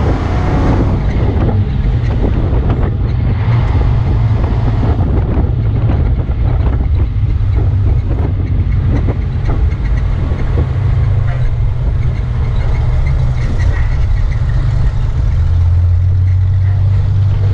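Ford L-9000 fire truck's engine running steadily as the truck drives, heard from the cab roof. The low engine note grows stronger near the end.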